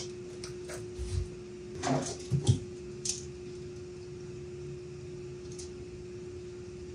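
A few light knocks and clicks from hand work at a wooden cabinet base, among them a tape measure being handled, over a steady hum. Most of the knocks come in the first half, the loudest about two and a half seconds in.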